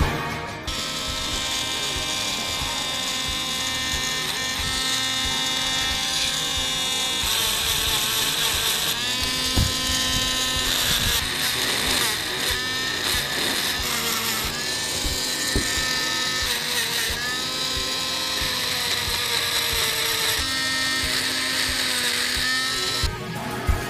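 Handheld rotary tool running with a small bit engraving into stone, a steady high whine that dips in pitch and recovers several times.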